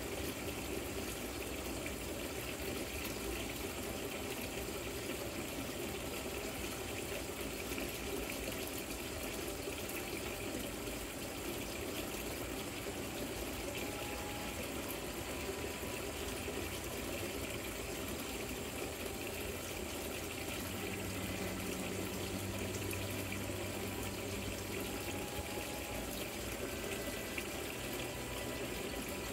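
Water running steadily over a rock-style patio fountain, a continuous splashing trickle.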